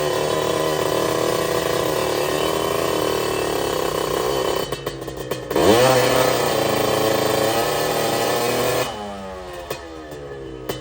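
Tuned small motorcycle engine, a stock cylinder fitted with a 59 mm piston, revved and held at high revs. The revs dip briefly about halfway, climb sharply again and hold, then fall away near the end.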